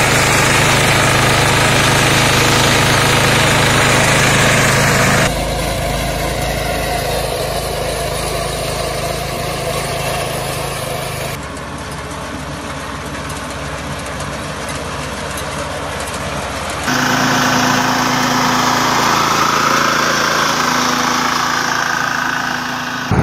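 Small four-stroke petrol engine of a walk-behind crop reaper running steadily as the machine cuts standing wheat and grass. The sound changes abruptly three times where separate field recordings are joined.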